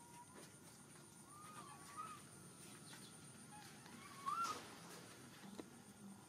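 A few short, wavy whistled animal calls: one about a second and a half in, and a louder one past the four-second mark. They sound over faint outdoor background noise with a steady high thin tone.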